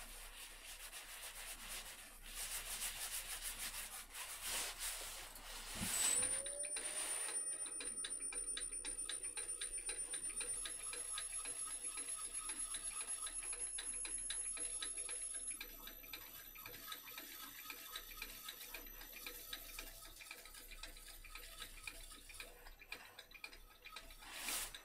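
Fast, even ticking throughout. About six seconds in, a small electric motor, likely the wood lathe, winds up with a short rising whine and then runs steadily with a thin high whine.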